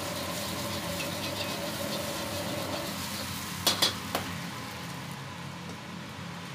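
Egg sizzling in a hot wok over a gas burner while it is stirred with a metal ladle. A little past halfway, the ladle clanks sharply against the wok three times in quick succession.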